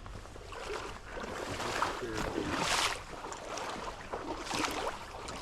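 Wading through shallow pond water: sloshing splashes of steps coming every second or two.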